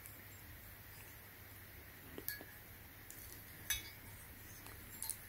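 A few faint metallic clinks and taps as the red-painted steel bead breaker of a manual tire changer is handled: a pair about two seconds in, one near four seconds and one near the end, over quiet room tone.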